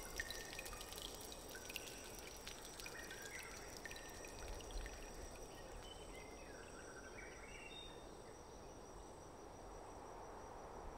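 Steady rush of running water, with short high chirping calls over it for the first seven seconds or so and faint steady high insect-like tones, fading out near the end.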